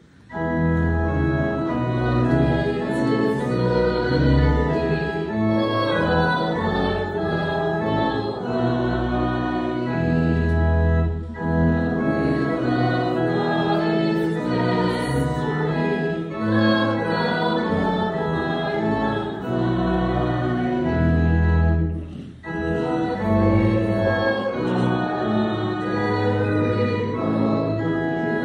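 Church organ playing a hymn in sustained chords over a moving bass line, with a congregation singing along; the music briefly drops away about 22 seconds in, between phrases.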